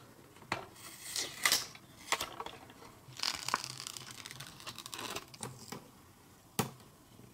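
Stickers being peeled off a backing sheet and pressed onto a small plastic toy machine: crinkling and soft tearing of the sheet, with scattered light clicks and taps on the plastic and one sharper click near the end.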